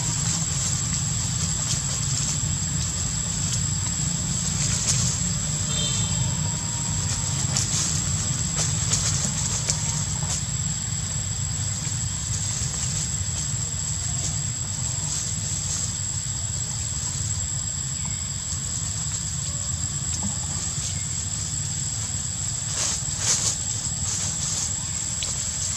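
Steady outdoor background noise: a constant low rumble with an unbroken high-pitched whine above it, and a few brief crackles, several in the first third and a pair about three-quarters of the way through.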